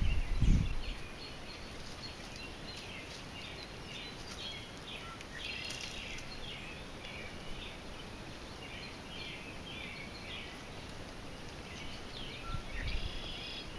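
Several birds chirping and calling in quick, repeated phrases, over a faint steady hiss. There is a brief low rumble at the very start and another near the end.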